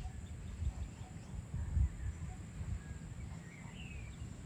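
Outdoor ambience: a low, uneven rumble that swells loudest a little under two seconds in, with faint bird chirps near the end.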